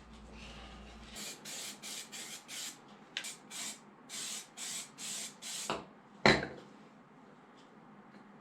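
Aerosol can of primer spraying in about a dozen short bursts, then a sharp knock about six seconds in.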